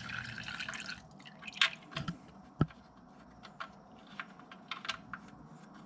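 Used engine oil running from the oil-pan drain hole into a drain pan, the flow stopping about a second in, then a scatter of single drips and small ticks.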